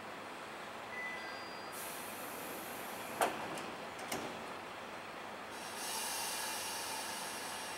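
Kashima Rinkai Railway 6000-series diesel railcar standing at the platform before departure. A hiss of compressed air starts about two seconds in, then come a sharp clank and a smaller one a second later, and a longer hiss begins near the end.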